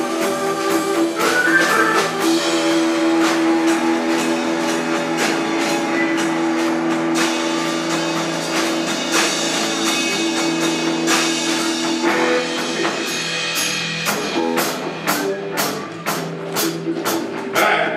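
Live rock band playing an instrumental passage: held keyboard chords over bass and drums. About twelve seconds in the held chords drop away, leaving a steady run of sharp, evenly spaced drum hits.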